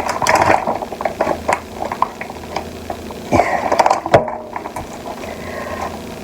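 Kitchen handling noises: a run of small clicks and knocks, with two louder thumps about three and four seconds in.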